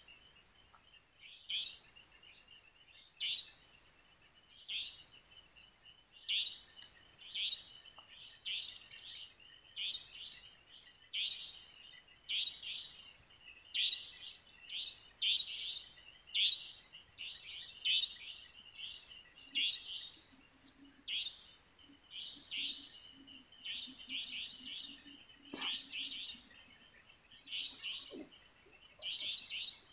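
Evening wildlife chorus: short high chirps repeating about once a second, over a steady high-pitched insect drone. A faint low hum joins for a few seconds in the second half.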